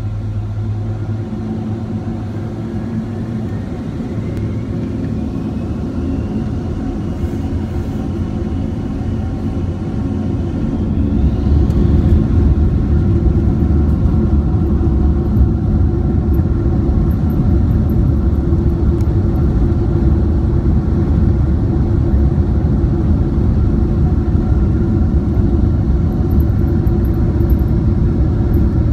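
The twin Rolls-Royce RB211 turbofans of a Boeing 767-300, heard from inside the cabin. A whine rises in pitch as the engines spool up to takeoff thrust, then from about ten seconds in the sound turns louder into a steady low rumble as the takeoff roll gets under way.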